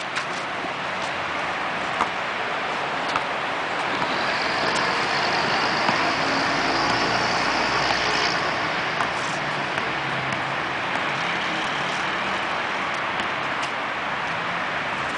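Steady road traffic noise, swelling for a few seconds in the middle as a vehicle passes, with a few sharp knocks.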